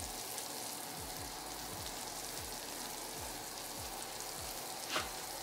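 Freshly baked mac and cheese sizzling in its glass baking dish straight out of the oven: a steady, even hiss of hot bubbling cheese. A single soft knock sounds about five seconds in.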